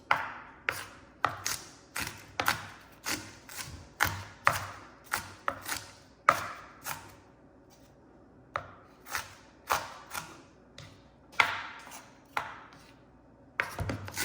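Kitchen knife chopping firm sweet potato on a cutting board: a steady run of sharp knocks, roughly two a second, with a short pause about halfway through.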